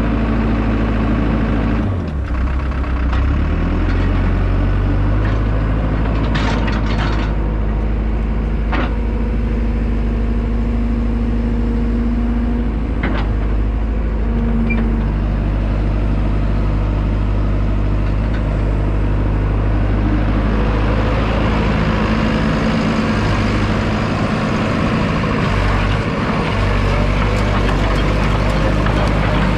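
Cat E120B hydraulic excavator's diesel engine running steadily under load, with a hum from the hydraulics that comes and goes as the machine is worked, and a few sharp clanks along the way.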